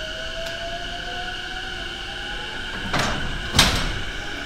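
Two JR East E231 series commuter train units coupling: a faint whine rises slowly as one unit creeps in, then a clank about three seconds in and a louder, sharper clank just after as the couplers meet and lock.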